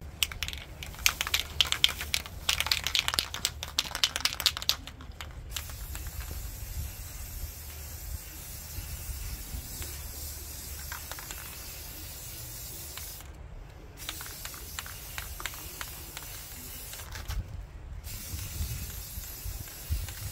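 Aerosol spray-paint can spraying in long, steady hisses, each broken off by a short pause twice. Before that, about the first five seconds hold a loud stretch of rattling clicks.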